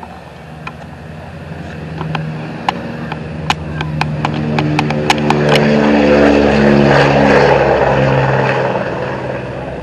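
Boeing B-29 Superfortress's four radial engines at full takeoff power as the bomber rolls down the runway and passes by. The propeller drone grows louder to a peak about seven seconds in and then eases off, its tones dropping in pitch as the plane goes past. Sharp clicks are scattered through the first half.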